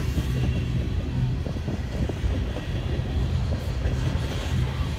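Freight train tank cars rolling past at close range: a steady low rumble of steel wheels on the rails.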